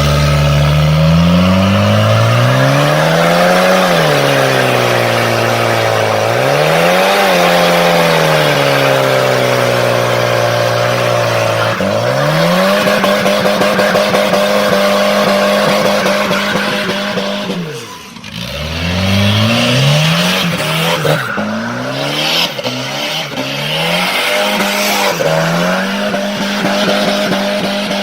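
Turbocharged wagon doing a burnout in first gear: the engine revs up hard, falls and climbs again, then holds steady near its top revs with the tyres squealing as they spin. About two thirds of the way through, the revs drop sharply for a moment, then climb back to the same ceiling.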